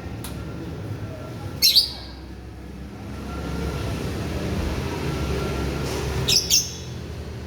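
Lovebird giving sharp, shrill chirps in two quick pairs, one about two seconds in and one near the end, over a steady low rumble.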